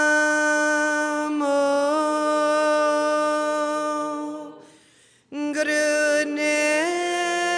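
A woman chanting a mantra solo into a microphone in long, held notes that step up and down in pitch, with a short pause for breath just past the middle.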